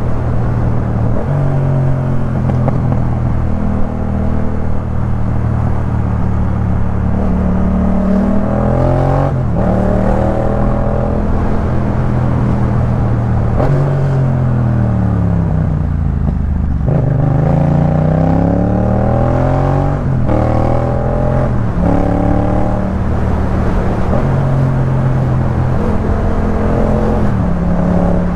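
Yamaha MT-07's 689 cc parallel-twin running through a Jeskap K4 full exhaust system while riding. The engine note holds steady at times, then climbs under acceleration and drops back as it slows, with a long fall in pitch about halfway through.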